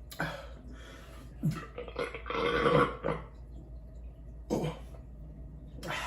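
A man burping after drinking beer: one long burp about two seconds in, the loudest sound, with shorter throaty sounds before and after it.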